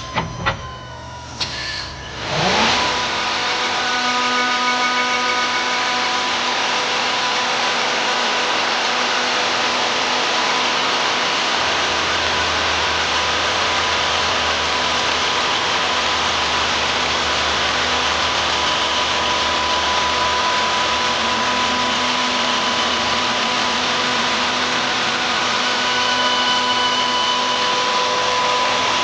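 A few knocks, then a CNC wood lathe spinning up with a rising whine about two and a half seconds in. It settles into a steady motor whine under the hiss of the cutter turning a wooden chair leg.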